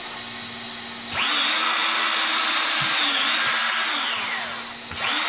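Cordless drill pre-drilling pilot holes in a wooden gusset. The motor starts about a second in and runs at speed for about three and a half seconds, its pitch dipping slightly as the bit loads. It stops briefly, then starts again near the end.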